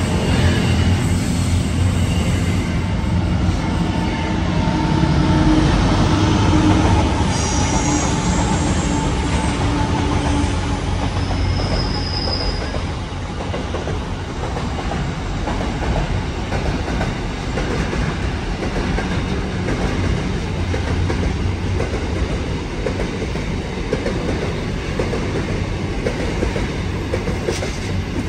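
Container freight train's wagons rolling past close by, a steady loud noise of wheels on the rails, with thin wheel squeals between about four and thirteen seconds in.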